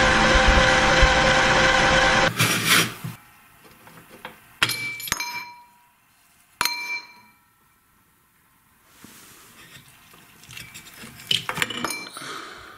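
Electric meat grinder motor running with a steady hum, crunching through its load, then shutting off about two seconds in. Three sharp metallic clinks with ringing follow as the grinder head's steel parts are handled. Near the end there is crackly, crunchy handling noise as the crushed slime-and-crystal mass is pulled from the barrel by hand.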